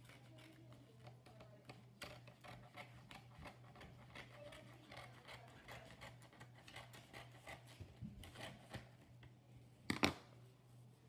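Scissors cutting a sheet of paper along a fold line: a run of faint snips and paper rustles, with one sharp knock about ten seconds in, the loudest sound.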